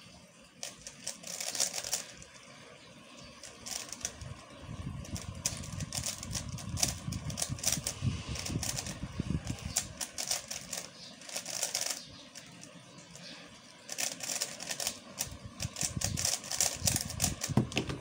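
Plastic 3x3 speedcube being turned fast by hand: dense runs of rapid clicking layer turns, broken by two short pauses, one about two seconds in and one around twelve seconds in.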